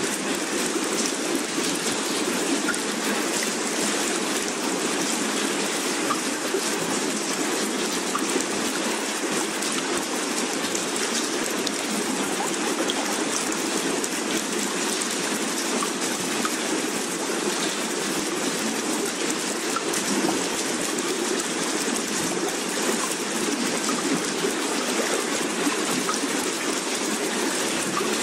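Steady rushing water, an even hiss with no swells or breaks.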